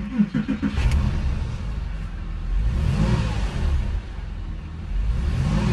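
Porsche engine started: a short crank, then a roar as it catches. It settles into a fast idle that swells a little twice.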